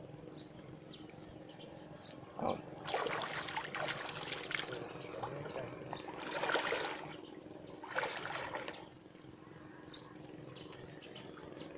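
Water sloshing and splashing around a person's legs as he wades through knee-deep floodwater. It comes in several surges, about three, six and eight seconds in.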